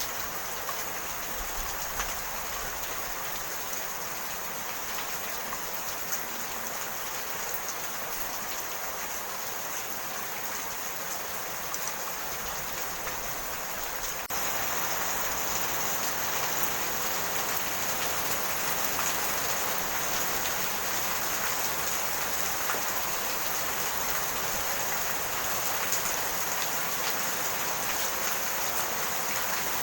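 Steady rain falling, a dense even hiss with scattered ticks of single drops. About halfway through it abruptly becomes a little louder.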